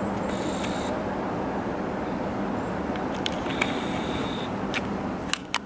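Steady hum of distant city traffic heard through an open window, with a few sharp clicks near the end.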